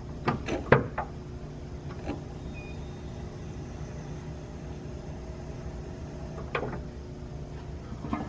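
Sharp metallic clicks and knocks as a car battery terminal is reconnected: a quick cluster in the first second, then single knocks around two seconds in, after six and a half seconds, and near the end. A steady low hum runs underneath.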